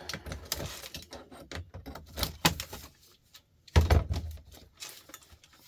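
Scattered clicks and knocks of parts from a dismantled light fixture being handled, with one heavier knock a little under four seconds in.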